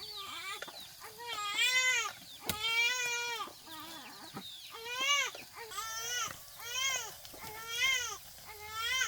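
An infant crying: a string of wailing cries, each rising and falling in pitch. A few longer wails come first, then about one cry a second.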